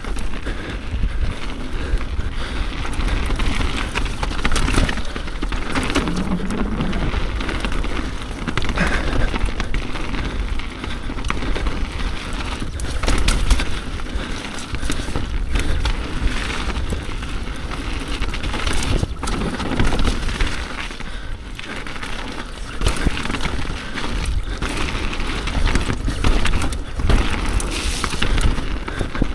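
Mountain bike descending a wet, rough trail, heard through an action camera's microphone: continuous tyre noise and wind rumble, with frequent knocks and rattles from the bike over roots and rocks.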